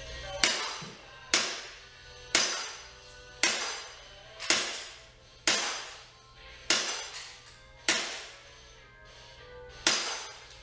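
Airsoft gun shots striking knock-down targets in a timed run, nine sharp cracks about one a second, each ringing out and fading, with a longer pause before the last.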